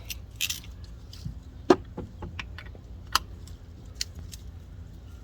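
Scattered sharp clicks and light knocks, the loudest about a second and a half in, from the oil filter housing cap on top of a 3.6 L V6 being tightened down, over a faint low hum.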